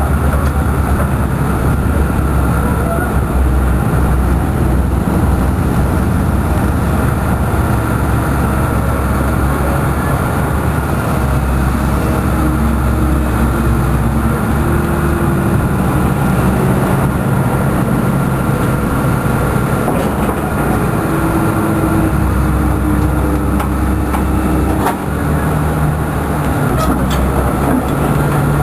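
Cat 330 excavator's diesel engine running steadily under load as the machine works, with a brief knock about 25 seconds in.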